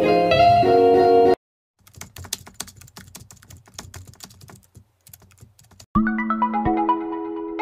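Rapid, irregular keyboard typing clicks for about four seconds, with music cutting off abruptly about a second in before them and melodic background music starting near the end.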